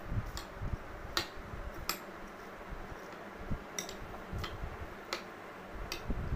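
Metal spoon stirring noodles in a glass bowl, clinking sharply against the glass about once a second at an uneven pace, with dull low bumps in between.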